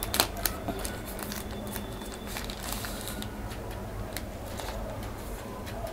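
Thin plastic wrapping and paper packaging crinkling and rustling as a fitness band is unwrapped by hand, with scattered soft crackles and clicks that are thickest in the first second.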